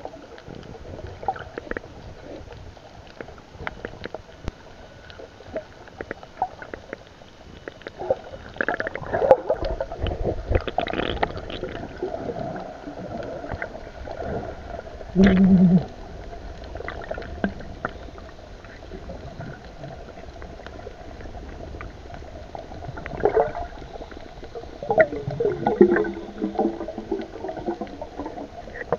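Underwater sound picked up by a submerged camera: muffled gurgling and water movement with scattered clicks and taps. There is a loud bubbly burst about halfway through and a few more near the end.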